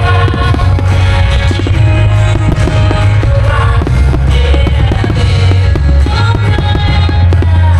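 Loud music with a heavy bass line and a singing voice, with fireworks popping and crackling throughout.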